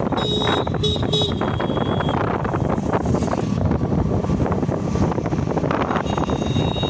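Wind buffeting the microphone on a moving motorcycle, a steady loud rush of wind and road noise. A few short high-pitched tones come in about a second in and again near the end.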